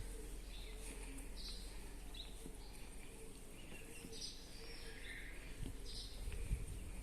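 Birds chirping in short, scattered calls over a steady low background hum, with a few soft low thuds near the end.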